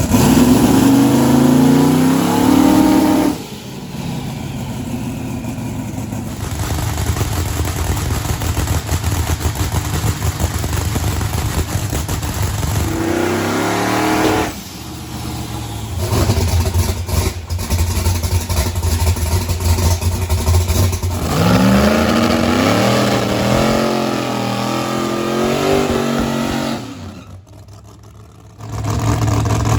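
Drag-race car engines revving and running hard. The engine pitch climbs steeply several times and drops off abruptly, with steady rumbling stretches in between and a quieter dip near the end.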